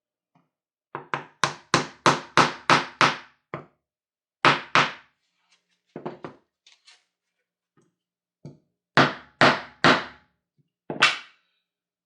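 Series of sharp knocks, like hammer taps, each with a short ring. A quick run of about eight at roughly three a second comes first, then a pair, a few faint taps, and a last run of five.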